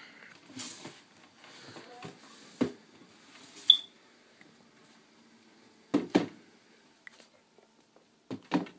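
Handling noise: scattered knocks and rustles, with two quick pairs of knocks in the second half and one short high squeak about four seconds in.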